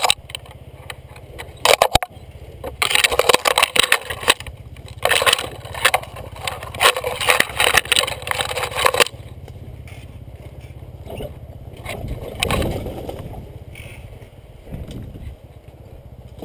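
Branches and dry brush scraping and crackling against a bike and rider pushing down a narrow overgrown forest trail, in dense clusters for the first nine seconds and then easing off. A steady low rumble from the ride runs underneath.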